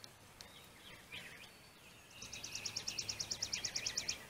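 A small songbird singing a rapid, even trill of about twenty short high notes, roughly ten a second, beginning about two seconds in, with a few softer chirps before it.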